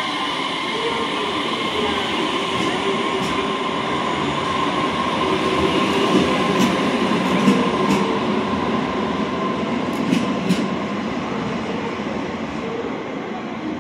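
JR Kyushu BEC819 series DENCHA battery-electric train pulling out and passing close by: a steady electric motor whine over the rolling noise, with a few sharp wheel clicks in the middle, fading as it moves away near the end.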